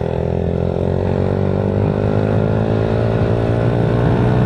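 Motorcycle fitted with an Exos X6 aftermarket exhaust muffler, accelerating on a road test, its exhaust note rising steadily in pitch.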